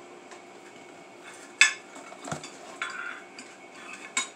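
Kitchenware being handled on a wooden table: a few sharp knocks and clinks, the loudest about a second and a half in, with a short rustle near three seconds.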